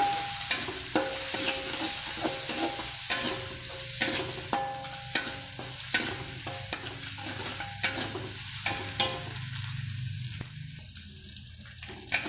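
Chopped garlic, shallots and bird's-eye chilies sizzling in hot oil in a metal wok while being stir-fried. A metal spatula scrapes the pan and clinks against it many times, with a brief ring from the wok on some strikes.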